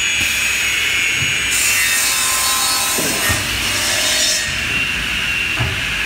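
Wood cross-cutting saw running with a steady whine, its blade cutting through a wooden block for about three seconds in the middle, with a few knocks along the way.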